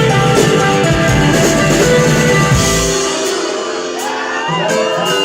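Live rock band playing loudly in a music venue. About three seconds in the drums and bass drop out, leaving held chords under crowd voices shouting and singing.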